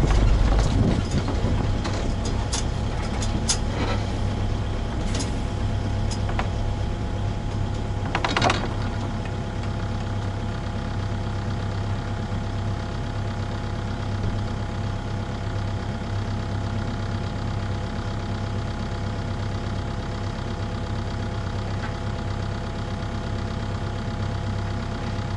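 Volvo EW60E wheeled excavator's diesel engine running steadily, heard from inside the cab. A few sharp clicks in the first several seconds and a short clatter about eight seconds in.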